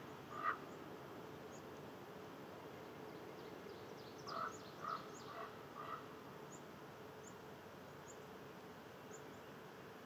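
Faint outdoor ambience with short croaking animal calls: one about half a second in and four in quick succession around the middle, with scattered faint high bird chirps.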